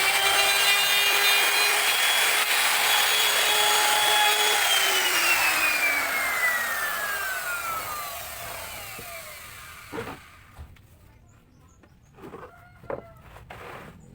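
Electric woodworking power tool's motor running at full speed, then switched off about four and a half seconds in and spinning down in a long falling whine. A few light knocks follow near the end.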